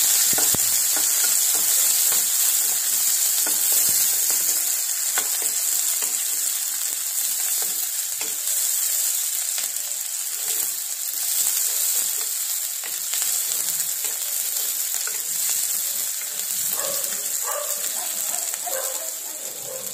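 Chopped onion, green chillies, curry leaves and garlic sizzling in hot oil in a kadhai, the onions frying until they just begin to colour. A wooden spatula stirs them, scraping and tapping against the pan, and the sizzle eases slightly toward the end.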